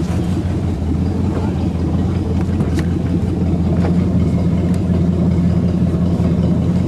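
Boat's Oldsmobile 455 Rocket V8 idling, a steady low drone with no change in speed.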